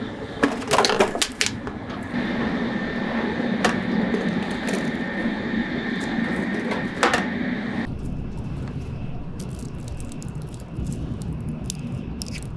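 A food box and an empty plastic bottle are pushed through the flap slots of a train's stainless-steel rubbish bins, giving a cluster of sharp clunks and knocks early on and single knocks later, over a steady hum. Then the steady low rumble inside a moving Shinkansen carriage, with many small crackling ticks as a plastic drink-bottle cap is twisted open.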